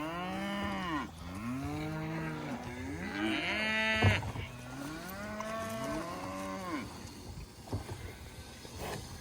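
A herd of Murray Grey cattle mooing, several long calls one after another and partly overlapping, one of them higher-pitched, about three seconds in. A sharp knock comes at about four seconds, and the calls fade after about seven seconds.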